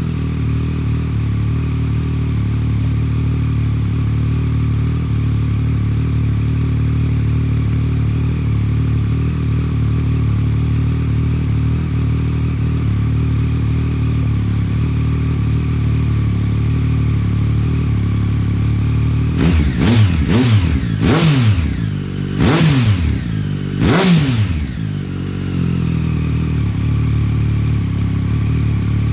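Triumph Street Triple 765 R's three-cylinder engine idling steadily through an SC-Project SCR-1 carbon exhaust, with its baffle in. About two-thirds of the way in, the throttle is blipped a handful of times in quick succession, each rev rising and falling back, before it settles back to idle.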